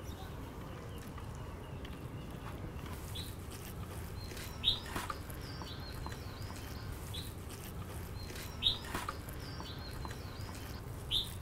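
Small birds chirping now and then, short high chirps scattered across a steady low background hum, with soft stirring of a thick floury mixture in a glass bowl.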